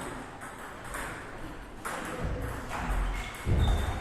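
Table tennis rally: the ball clicking sharply off bats and table about once a second, with a heavier low thump a little past three seconds in.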